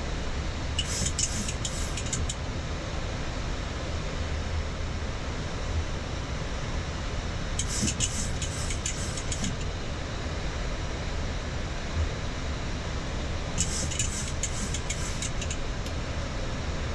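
Steady rushing cockpit noise of a Boeing 737-8 MAX in descent. Three runs of rapid, high-pitched clicking cut in near the start, about halfway through, and near the end, each lasting about two seconds.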